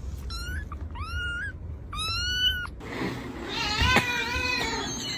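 A domestic cat meowing: three short meows, rising a little more with each, then a longer, wavering meow.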